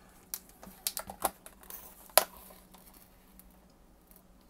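Plastic card packaging and cards being handled by hand, giving a scatter of light clicks and taps, the sharpest just over two seconds in.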